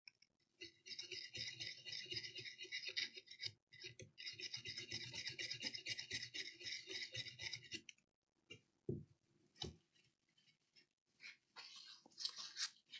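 Toothbrush bristles scrubbing briskly over a laptop motherboard around the freshly soldered USB-C ports, cleaning them with isopropyl alcohol, in two bouts that stop about eight seconds in. A couple of low thumps follow, then a brief last scrub near the end.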